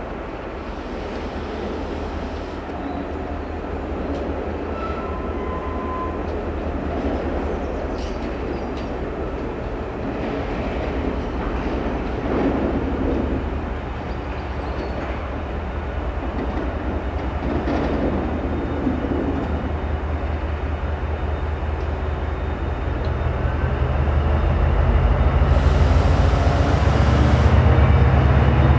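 Class 68 diesel-electric locomotive's Caterpillar V16 engine running as it approaches hauling coaches, its low drone growing steadily louder toward the end. A hiss lasting about two seconds sounds near the end.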